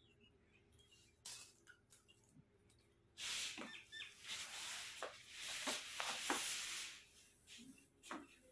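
Liquid poured from a steel pot into a clay pot, a steady splashing pour lasting about four seconds from about three seconds in, with a few faint clinks of the steel pot before it.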